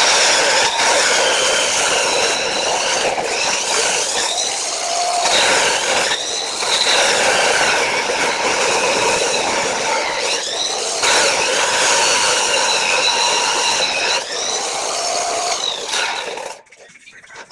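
Electric grinder saw cutting through flat steel: a loud, high-pitched whine that sags in pitch each time the blade bites into the metal and then recovers, four or five times. It shuts off suddenly about a second before the end.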